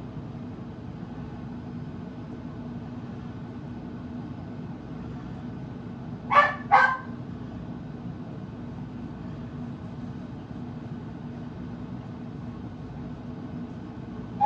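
A pet dog barks twice in quick succession about six and a half seconds in, over a steady low background hum.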